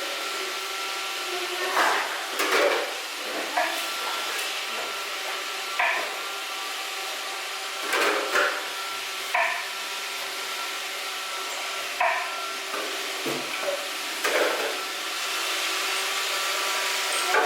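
Robot vacuum cleaner running with a steady whir, and a short knock every one to two seconds.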